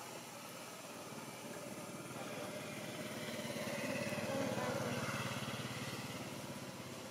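A passing motor vehicle's engine, growing louder toward the middle and then fading away.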